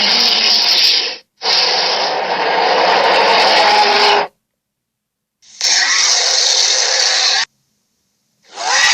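Made-up creature sound effects for a Skunkosaurus: harsh, rasping growl-hisses with a faint pitched tone beneath the noise. They come as separate clips of one to three seconds, each cut off abruptly into dead silence, and another starts near the end.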